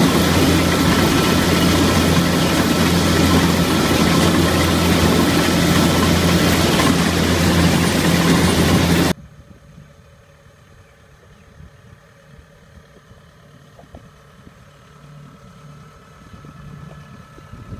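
Kubota crawler combine harvester's engine and threshing machinery running loud and steady, heard from on board while it cuts rice. About nine seconds in, the sound cuts off abruptly to a much quieter, faint engine hum that grows a little louder near the end.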